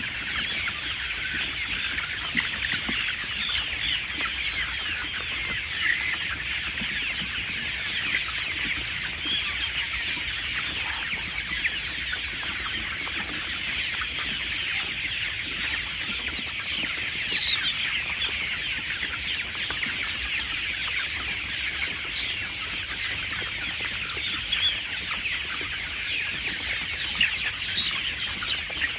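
A flock of young chickens, about five weeks old, calling continuously: many overlapping high peeps and clucks.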